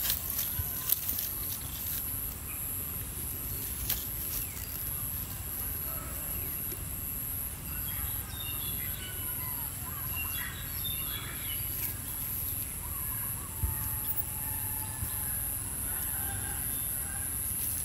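Scattered short animal calls over a steady low outdoor rumble, with a few sharp clicks.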